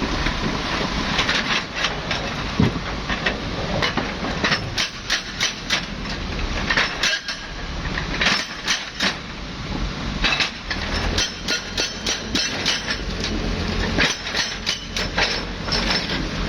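Volvo excavator working: a constant machine rumble with many sharp metallic clanks and rattles, coming in clusters.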